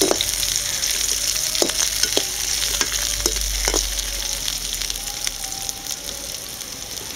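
Brinjal (eggplant) pieces sizzling as they shallow-fry in hot oil in a metal kadai, with a perforated metal spatula clinking and scraping against the pan a few times as they are stirred. The sizzle eases off a little near the end.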